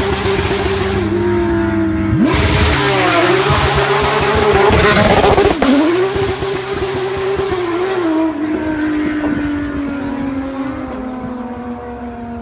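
Race car engines running on a road, with a loud rush as a car goes by close and its engine note dips sharply in pitch as it passes about five and a half seconds in. After that a steady engine tone slowly falls in pitch and fades.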